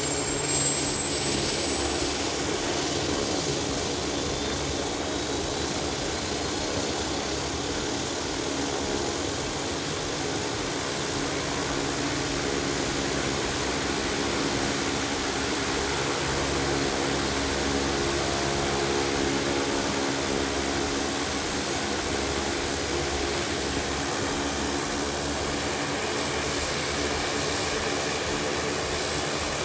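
GAF N22B Nomad's Allison 250 turboprop engines running, with a strong, steady high turbine whine over a dense rumble. The whine climbs a little over the first two seconds, then holds level.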